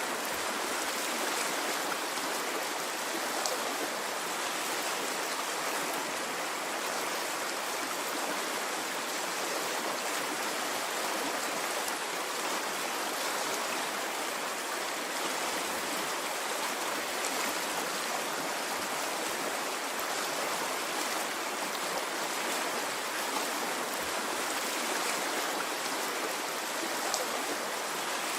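Water in a stream flowing steadily, an even hiss of running water with faint small splashes.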